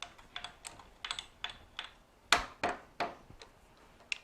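A run of about a dozen sharp metallic taps and knocks, irregularly spaced with a slight ring, the loudest about halfway through, as a brass workpiece is clamped down in a milling vise on a V-block and parallel.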